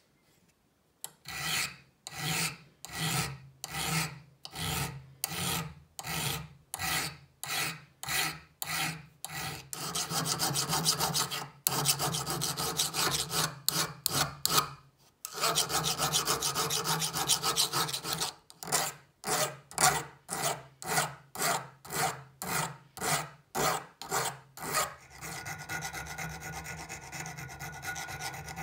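Hand file rasping across the steel of an old HAZET open-ended wrench held in a vise, in even push strokes about one and a half per second, starting about a second in. In the middle the strokes come quicker and run almost together, and near the end a thin needle file gives a finer, quieter, steadier rasp.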